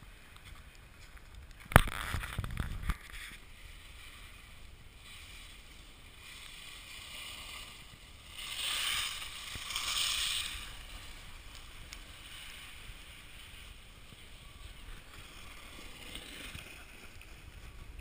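Scraping and hissing of something sliding fast over icy slush, loudest for a couple of seconds about halfway through. A sharp knock and about a second of rough rumbling come about two seconds in.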